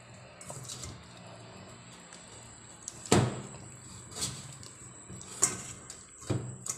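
Hands handling wet, marinated field-rat carcasses in a stainless steel bowl. The meat knocks against the bowl several times, loudest about three seconds in, with softer knocks and wet handling after.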